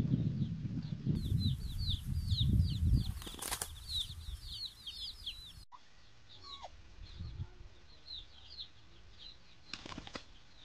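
Two hens fighting, a flurry of wing-flapping and scuffling for the first three seconds or so, with another short burst of flapping near the end. Short, high, falling chirps repeat in the background.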